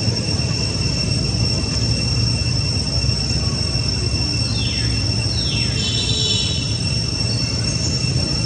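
Steady high-pitched insect drone with a low rumble underneath. About halfway through, two quick calls fall sharply in pitch, followed by a brief flurry of high chirps.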